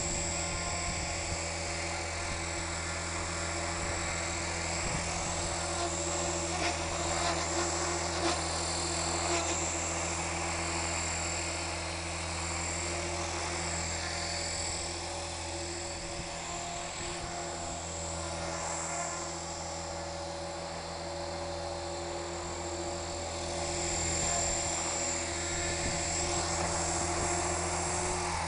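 Electric 450-size Curtis Youngblood Rave 450 RC helicopter with a flybarless unit, hovering: a steady whine from the motor and rotors, swelling a little louder near the end.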